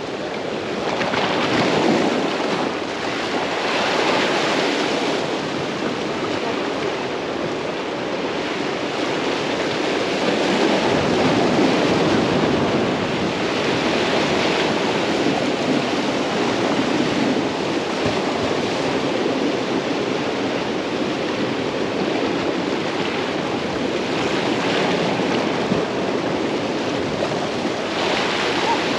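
A steady rush of water at the shore, rising and falling in slow surges every few seconds.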